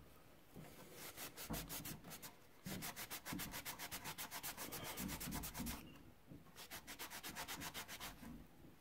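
Faint, quick back-and-forth scrubbing on a steel John Deere JD-50 implement wrench, about eight strokes a second, in two spells with a short pause about six seconds in. The scrubbing rubs off the loose, flaky black residue left on the metal by electrolysis rust removal.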